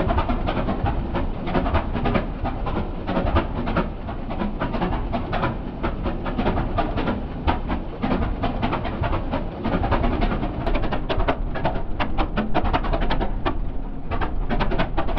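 1918 Curtiss OX5 liquid-cooled V8 aircraft engine running, with its open rocker-arm valvetrain. The sound is slowed to quarter speed, so the running engine comes through as a dense, uneven clatter of separate beats over a low rumble.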